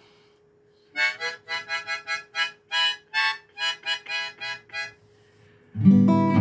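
A harmonica playing a run of about a dozen short, separate notes, then a guitar chord strummed loudly near the end.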